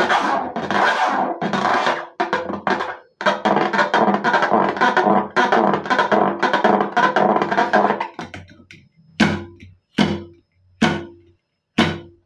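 Background music, which near the end thins out into four separate short hits about a second apart.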